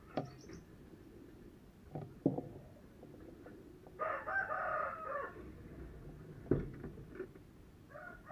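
A bird calling in a stacked, pitched call lasting about a second, about four seconds in, with another call starting near the end. A few short sharp knocks come before and between the calls.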